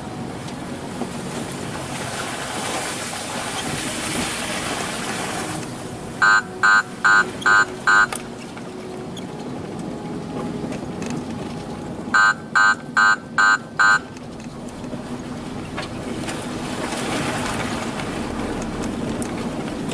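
A 4x4 running over an off-road track with steady engine and tyre noise. Twice it is cut by a quick series of five short, loud beeps, about two a second: once near the middle and again a few seconds later.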